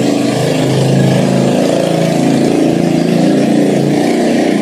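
A motor running steadily and loudly, dropping away right at the end.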